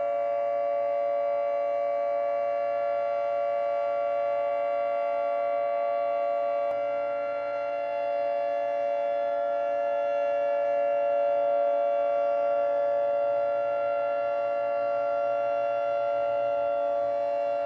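Whelen WPS 2903 electronic outdoor warning siren sounding a loud, steady tone that holds its pitch without rising or falling.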